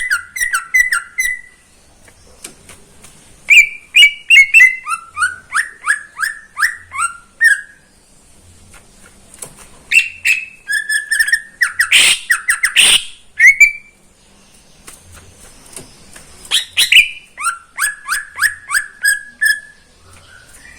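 Cucak ijo (green leafbird) singing in bursts of rapid, repeated downslurred whistled notes, each burst lasting a few seconds and separated by short pauses. About twelve seconds in, a loud harsh rasping burst cuts through the song.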